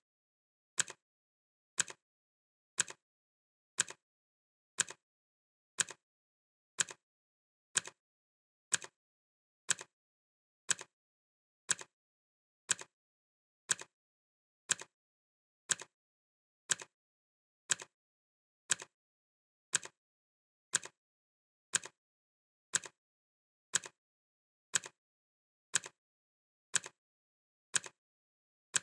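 Clock ticking sound effect for a countdown timer: sharp, identical ticks at a steady one per second, with dead silence between them.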